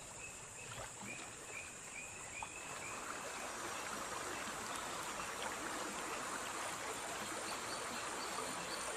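Forest ambience: a steady high insect drone, with a run of short, evenly repeated chirps in the first couple of seconds. The rush of flowing river water fades in from about three seconds in and carries on softly.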